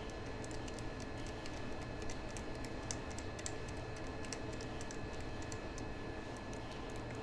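Quick, irregular light clicks and ticks, several a second, over a faint steady high whine.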